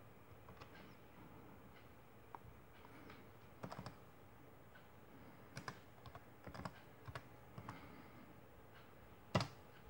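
Keystrokes on a computer keyboard: a few short, faint taps in small scattered clusters, then one louder click near the end.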